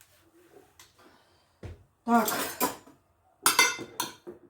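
Kitchen dishes and utensils clattering: a few light knocks, a dull thud about a second and a half in, and a ringing clatter of metal or crockery about three and a half seconds in.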